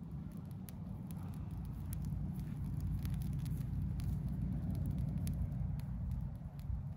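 Scrap-wood kindling just catching in a fire pit, giving sharp crackles and pops, over a low, uneven rumble of wind on the microphone that swells in the middle.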